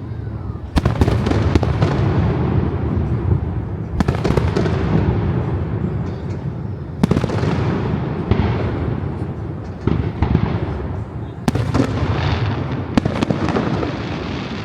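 Aerial fireworks display: sharp shell bursts every few seconds, about five of them, with crackling and echoing booms filling the gaps between.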